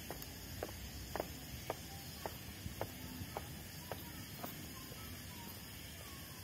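Footsteps of shoes on stone paving at a walking pace, about two steps a second, dying away about two-thirds of the way through, over a steady background hiss.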